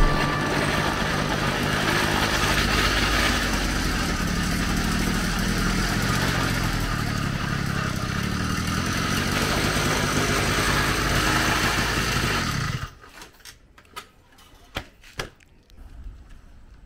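Chinese 80cc two-stroke bicycle-kit engine running steadily as the cargo trike is ridden, with wind and road noise. The sound cuts off abruptly about three-quarters of the way through, followed by a few light clicks.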